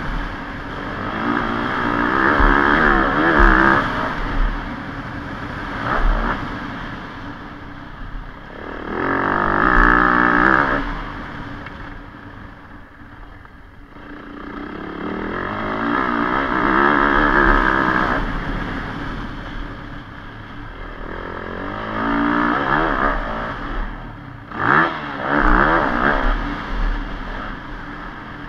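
Motocross bike engine being ridden on a dirt track, revving up and backing off again and again as the rider works the throttle through the straights and turns, with a quieter spell about halfway through.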